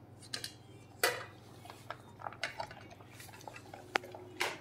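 A dog eating from a stainless steel bowl: irregular clinks and knocks as its muzzle and the food hit the metal, one near the end ringing briefly.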